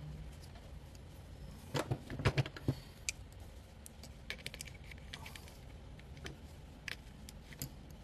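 Scattered clicks and knocks of a water heater's control circuit board being handled and turned over on a desk, with a hand tool tapping against it; a quick cluster of sharper knocks comes about two seconds in.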